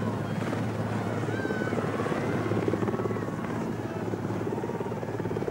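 Steady drone of a camera helicopter's engine and rotor, with a fast, even chopping.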